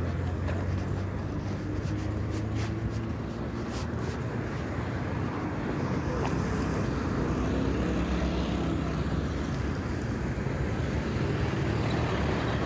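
Street traffic at a road junction: a steady low rumble of vehicle engines and tyres. A nearby car engine's hum fades out over the first few seconds, and a pickup and a motorcycle drive past near the end.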